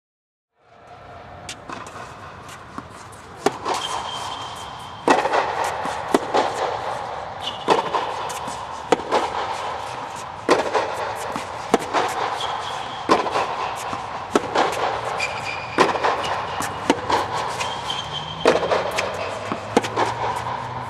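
Tennis ball struck back and forth in a baseline rally: sharp racket hits and bounces about every second to second and a half, some louder than others, with a few short high squeaks between them.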